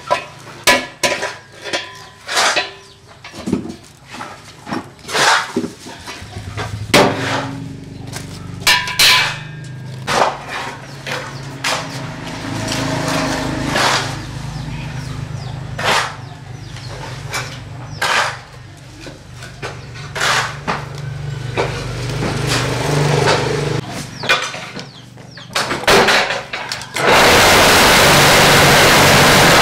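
Repeated sharp metal knocks and clanks from an old rusted wheelbarrow being handled and knocked about, over a steady low hum. Near the end a loud, even rushing noise sets in.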